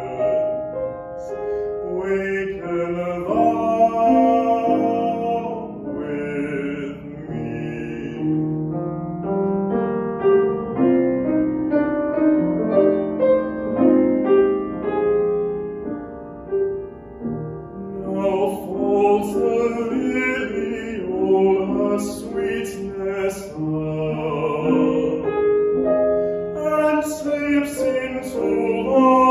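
Male classical singer performing a song with grand piano accompaniment. The voice drops out for a piano-only passage from about 9 to 18 seconds in, then comes back in over the piano.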